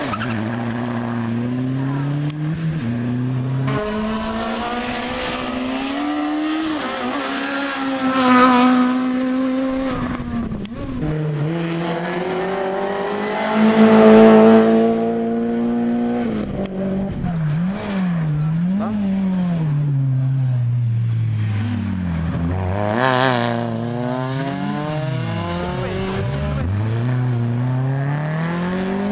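Rally car engines at full throttle on a special stage, their pitch climbing and dropping again and again through gear changes and lifts. Cars pass close by, loudest about 8, 14 and 23 seconds in.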